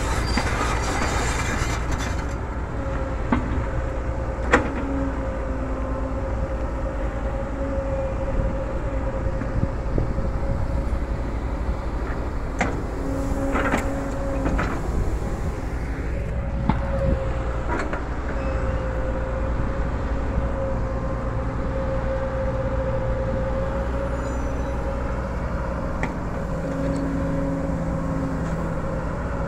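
Kobelco SK140 hydraulic excavator's diesel engine running under load, with a steady whine over a low drone. A few sharp knocks as the bucket digs into crushed stone.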